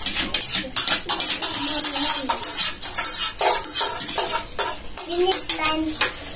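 Cutlery and plates clinking and scraping during a meal, many quick irregular clicks with a few brief ringing tones.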